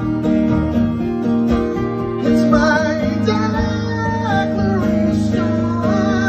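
Acoustic guitar strummed live, with a man singing over it; the voice comes in about two seconds in with held, wavering notes.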